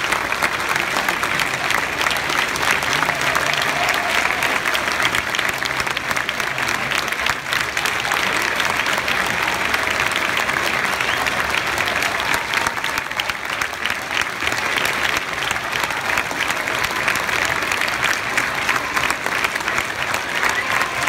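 Large stadium crowd applauding: dense, steady clapping from thousands of hands, with some scattered voices mixed in.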